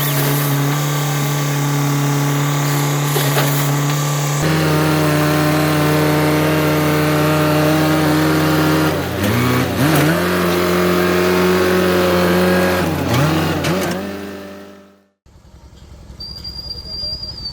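A vehicle engine running steadily, its pitch dipping and recovering twice in the second half, then fading out.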